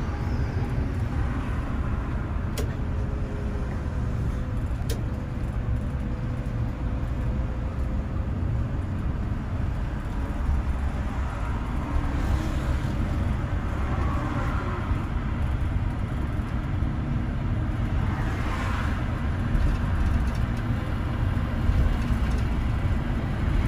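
Steady low rumble of a bus's engine and tyre noise, heard from inside the cabin while moving slowly in traffic. A couple of faint clicks sound a few seconds in.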